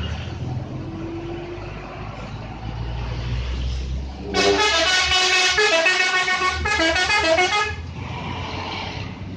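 Telolet multi-tone musical horn on a Harapan Jaya coach playing a quick stepped-pitch tune of about three and a half seconds, starting about four seconds in, with a brief break partway through. Before and after it the bus's engine runs with a low rumble.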